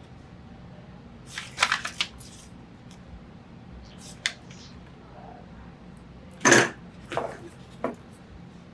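Paper collage pieces being handled, shuffled and slid over a cutting mat: several short rustles, the loudest about six and a half seconds in.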